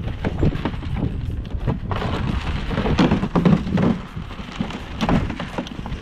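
Goats eating grain from a trough: a dense run of small crunching and clicking sounds from muzzles and feed against the trough, louder about two to four seconds in.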